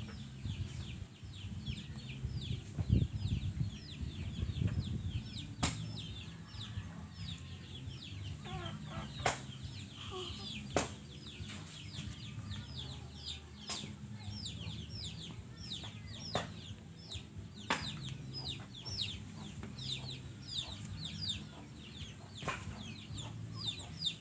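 Chickens or chicks peeping on and on, a steady run of short falling chirps about two to three a second, with a few sharp clicks now and then.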